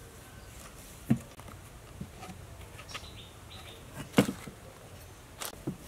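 A few sharp knocks of a soda can and bread slices being handled on a wooden cutting board and a baking tray, the loudest about four seconds in. Faint bird chirps in the background.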